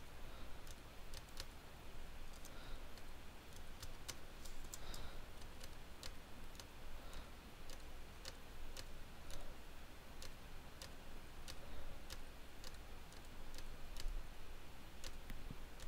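Faint, irregular clicks of computer keyboard keys over a low steady hum.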